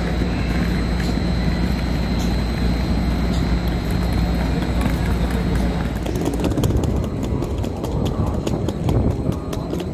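Railway station platform ambience: a steady low hum with a thin high whine, as from electric trains standing at the platforms. About six seconds in the hum falls away, and a run of short sharp clicks follows.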